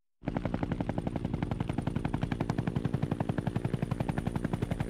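Sustained machine-gun fire: an even, rapid rattle of well over ten shots a second over a steady low hum, starting abruptly just after the start and running without a break.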